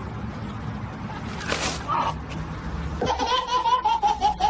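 Outdoor street noise with one brief noisy burst about a second and a half in, then, after an abrupt cut about three seconds in, a baby laughing hard in rapid, evenly repeated bursts.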